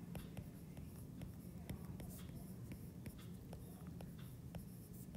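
Stylus tip tapping and sliding on a tablet's glass screen in handwriting: a faint, irregular run of small clicks over a low steady hum.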